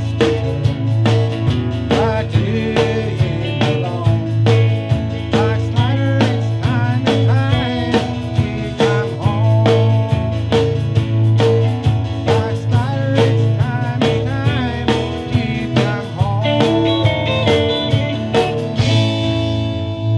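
Live gospel band playing: acoustic guitar, bass and drums on a steady beat, with a melody line that bends in pitch. Near the end a cymbal crash rings over a held chord.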